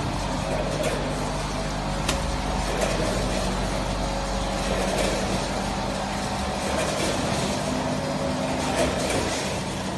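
Automatic vertical form-fill-seal packing machine running while bagging potato chips: a steady mechanical hum with a few sharp clicks from its working cycle.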